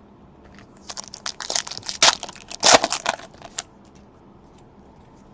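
Crinkling, crushing rustle of a foil trading card pack wrapper being handled, a dense run of crackles from about a second in that stops after about two and a half seconds.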